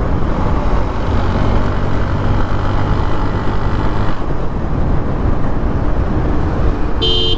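TVS Apache RTR 180's single-cylinder four-stroke engine pulling through its stock exhaust while the motorcycle is ridden, a steady dense running note. A short beep sounds near the end.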